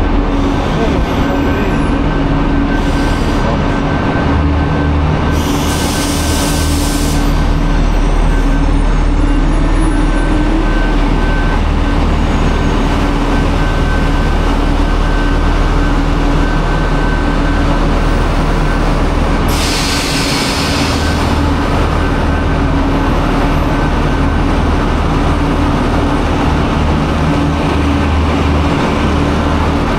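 Diesel train idling at a station platform: a loud, steady engine drone with a constant whine. Two short bursts of hiss cut in, about six seconds in and again about twenty seconds in.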